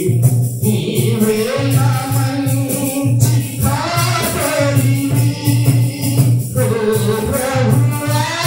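Telugu Christian devotional song: singing voices carrying a melody over a steady, evenly pulsing beat.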